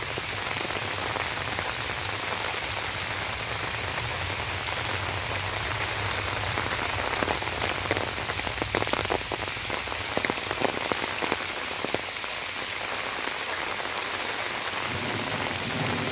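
Heavy monsoon rain falling steadily on grass, paths and puddles, an even hiss, with a run of sharper close drop taps between about seven and eleven seconds in.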